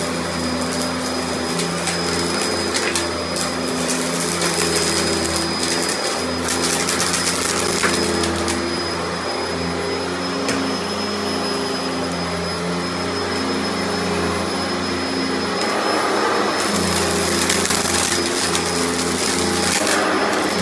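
Sanitaire upright vacuum cleaner running steadily on carpet, its motor hum carrying a constant high whine. Scattered ticks and crackles of small beads and lint are being sucked up, more of them about a third of the way in and near the end.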